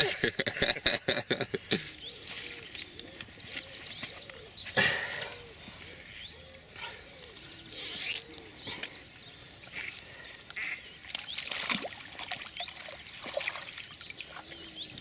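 Waterfowl on the lake calling repeatedly with short honking, quacking notes. The calls come after a quick flurry of knocks and slaps in the first two seconds.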